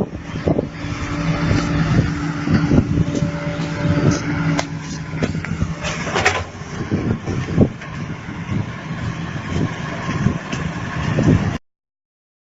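Heavy machine's engine running steadily under a clatter of irregular knocks and rattles. It cuts off abruptly near the end.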